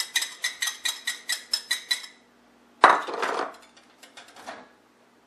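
A wire whisk tapping rapidly against the rim of a cup, about six clicks a second with a light metallic ring, as whisked egg white is knocked out into the mixing bowl. The tapping stops about two seconds in, followed by one louder clatter and a few faint knocks as the utensils are set down.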